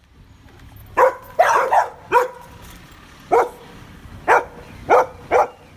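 Shiba Inu barking: about eight short, sharp barks in irregular bursts, several close together about a second in, then spaced out toward the end.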